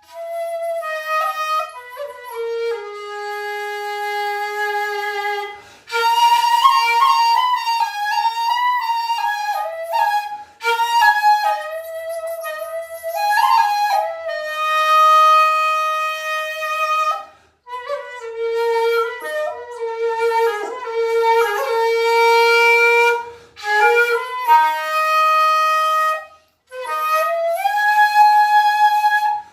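Shakuhachi (Japanese end-blown bamboo flute) playing an enka melody in long held notes with slides between pitches, pausing briefly for breath between phrases every few seconds.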